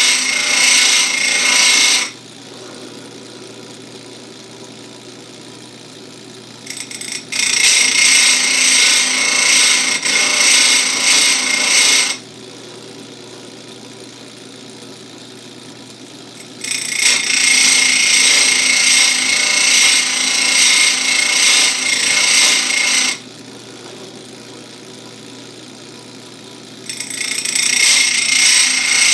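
Electric chain-sharpening grinder: its abrasive wheel grinds the cutters of a full-chisel chainsaw chain in stretches of about five seconds. Between the stretches, the motor's steady hum comes through while the chain is moved on to the next cutter.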